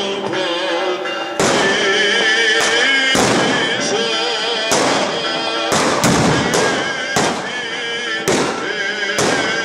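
Firecrackers going off in a string of about eight loud bangs at irregular intervals, each echoing briefly, over a sustained musical sound.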